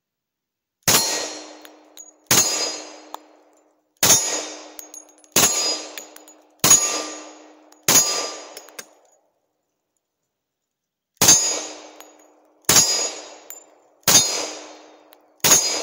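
Glock 20 Gen 4 10 mm semi-automatic pistol fired ten times, roughly one shot every second and a half, with a pause of about three seconds after the sixth. Each shot is followed by a ringing clang from the steel target being hit.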